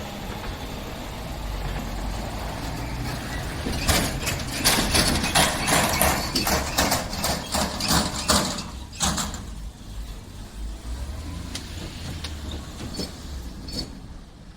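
Train passing over a level crossing: a steady rumble, with a run of sharp wheel clacks over the rail joints for about five seconds in the middle, then fading to a quieter rumble.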